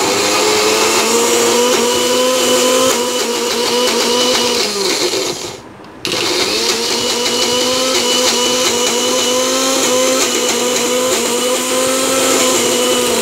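Electric mixer grinder (mixie) running loud, grinding soaked urad dal and rice with a little ice water into batter. About five seconds in it is switched off and spins down with a falling pitch, then starts again about a second later and runs steadily.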